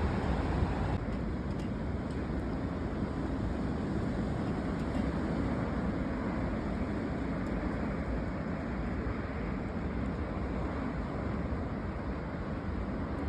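Strong dust-storm wind blowing as a steady, low rushing noise, a little gustier in the first second.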